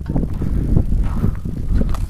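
Wind buffeting the microphone: a loud, uneven low rumble that gusts and flutters.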